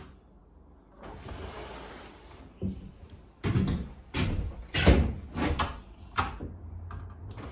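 Cabin windows being opened: a soft sliding scrape about a second in, then a string of sharp knocks and clunks from the sashes and latches being worked.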